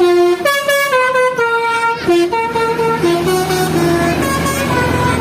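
Bus telolet horn, a basuri multi-tone air horn, playing a melody: held notes stepping up and down one after another every third to half a second. A lower steady tone joins about halfway through.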